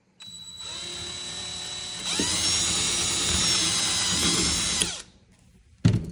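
Cordless drill with a 1/8-inch bit drilling a pilot hole into a kayak hull through the end hole of a metal gear track. It runs slower for about two seconds, then speeds up, higher and louder, for about three seconds before winding down and stopping. A short knock comes near the end.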